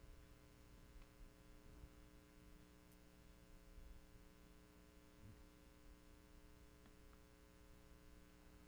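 Near silence: a steady, faint electrical hum, with a few faint ticks.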